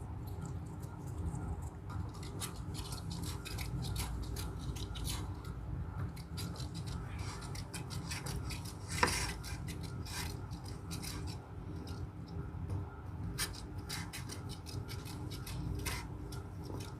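Slime being kneaded and rolled by hand: soft rubbing with many small, irregular sticky clicks and crackles, and one sharper click about nine seconds in, over a steady low hum.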